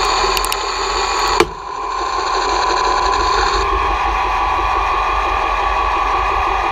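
1960s Swiss Lesto Scintilla lathe running with a steady whine, its tool cutting a high-tensile aluminium bar. A sharp click comes about a second and a half in, the sound dips for a moment, and partway through the highest whine drops out.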